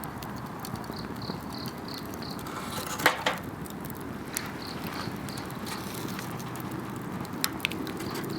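Wood campfire burning and crackling, with a sharp pop about three seconds in and a couple of smaller snaps near the end. Behind it an insect chirps in a steady rhythm, about three short high chirps a second.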